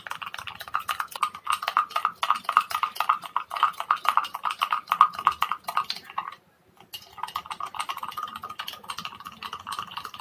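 A spoon is rapidly beating instant coffee powder, sugar and a little milk in a glass mug, whipping it until it turns frothy. Quick clinks of the metal spoon against the glass, many a second, make the glass ring. They stop for about half a second a little past the middle, then carry on.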